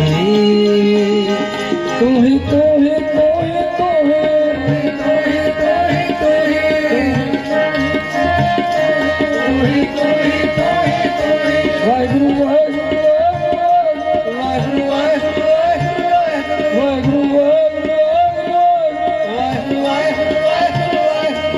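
Sikh kirtan music: tabla keeping a steady rhythm under a wavering, ornamented melody line.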